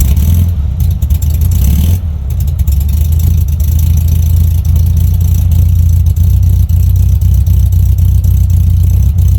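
An engine running steadily and loudly, with a dense low rumble of rapid firing pulses.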